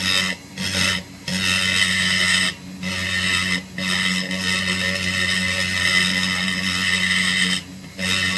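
High-speed rotary tool with a carbide burr grinding into a chainsaw crankcase, trenching the transfer passages while porting the two-stroke case. It is a steady whining grind that breaks off briefly several times as the burr is lifted and set back. It then runs continuously for a few seconds before dropping away near the end.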